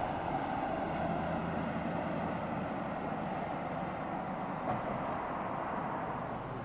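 Steady noise of a vehicle driving across a highway viaduct, engine and tyres on the road surface.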